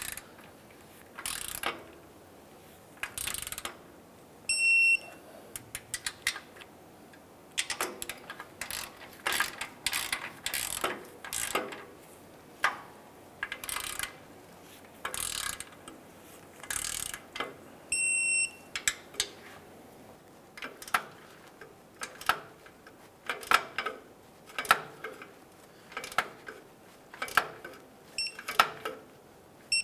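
Ratchet of a digital torque wrench clicking in short strokes as exhaust flange bolts are torqued to 25 foot-pounds. A short electronic beep from the wrench comes about five seconds in, again around eighteen seconds, and faintly near the end, signalling that the set torque has been reached.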